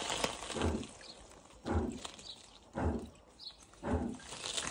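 Water pump pressurizing a newly plumbed filter system, water and air coming through in four regular pulses about a second apart as the air is purged from the lines.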